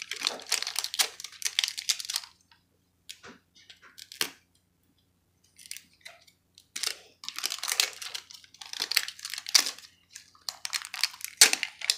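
Crinkly wrapping on a toy surprise ball being torn and peeled off by hand, crackling in bursts with short pauses between them and a couple of sharp clicks midway.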